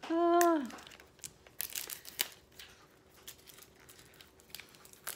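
Crinkly lip product packaging being worked open and torn by hand: a long run of irregular crackles and rustles. It opens with a brief hummed 'mm' from the person.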